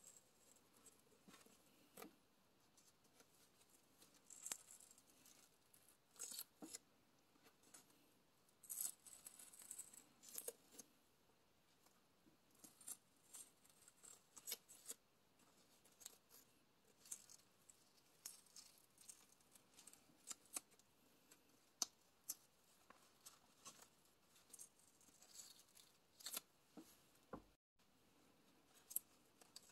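Masking tape being peeled off the edge of a painted journal page: faint, scattered short crackles and brief rips of tape lifting from paper.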